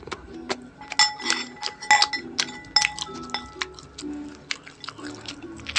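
A metal fork clinking and scraping against a ceramic plate: a dozen or so irregular sharp clinks, some ringing briefly. Soft background music plays underneath.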